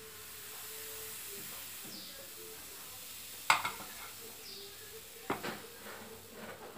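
Pancake batter sizzling steadily in a hot nonstick frying pan as it is poured in from a ladle. Two sharp clacks of kitchenware come about three and a half seconds in and again about two seconds later.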